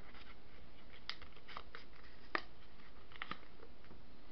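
A few faint, sharp ticks and clicks at irregular intervals over a steady low hum; the loudest click comes about two and a half seconds in.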